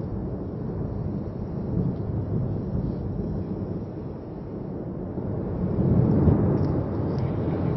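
Deep, continuous rumble of the erupting Cumbre Vieja volcano, swelling louder about six seconds in.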